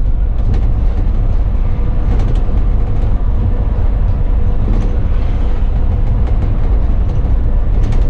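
Bus on the move, heard from the driver's cab: a steady low engine and road rumble with scattered light clicks and a faint steady hum.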